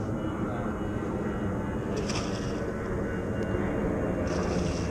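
Steady low background rumble, with brief hissy swells about two seconds in and again near the end.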